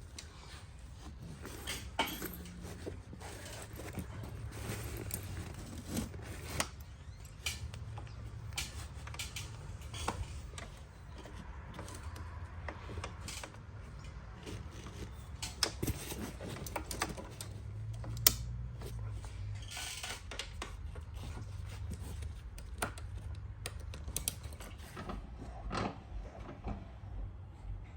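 Irregular clicks, taps and knocks of hardware being handled, over a low steady hum.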